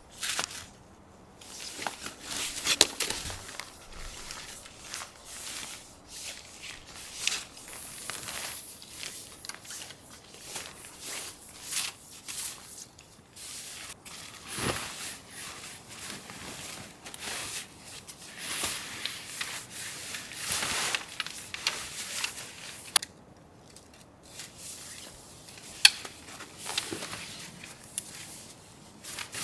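Stiff tent fabric rustling and crinkling as long tent poles are slid through it and the tent is hauled up, with a few sharp clicks and knocks from the poles, the loudest about a second in, near three seconds and twice in the last third.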